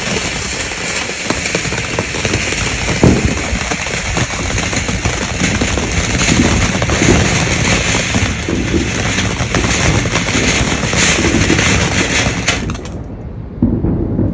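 Consumer firework going off: rapid, dense crackling and popping for about twelve seconds, with one louder bang about three seconds in, then stopping abruptly.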